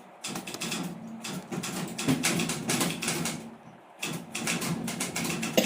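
Facit manual typewriter clattering: rapid runs of mechanical clicks, broken by a short pause a little past the middle.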